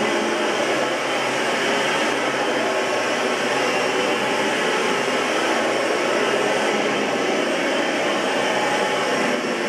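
Oreck XL21 bagged upright vacuum cleaner running steadily, a continuous motor whir and airflow rush.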